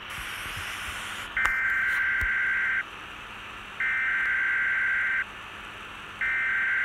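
Emergency broadcast alert signal: three harsh electronic tone bursts, each about a second and a half long with about a second between them, over a steady static hiss.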